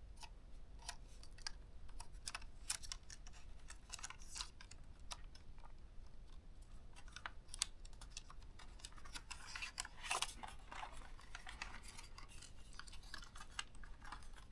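Faint, irregular clicks and light scraping of plastic laptop parts being handled and pushed into place while a ThinkPad T430 is reassembled, with a brief flurry of clicks about ten seconds in.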